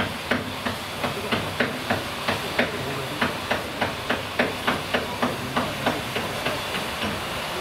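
Hammer striking steel at about three blows a second, a steady, even run of metal knocks while a locomotive's rusted ash pan is being freed from its boiler. A steady hiss runs underneath. The blows stop a little over a second before the end.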